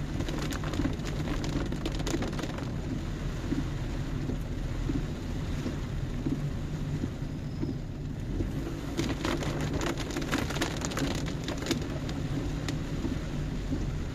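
Heavy rain falling on a car's roof and windscreen, heard from inside the cabin, over the steady low hum of the car's engine running. Rain patters sharply in bunches about half a second in and again from about nine seconds in.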